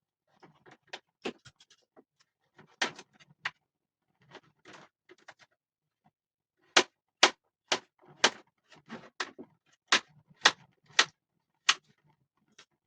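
A series of sharp knocks or taps, scattered at first, then a regular run of louder strikes about two a second in the second half.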